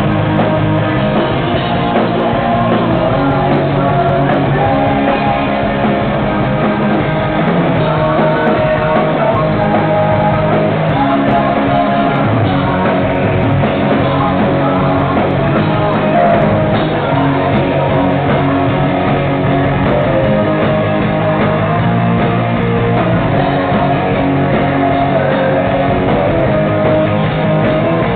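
A live rock band playing: electric guitars and drums driving a steady beat, with a male lead singer's voice over them.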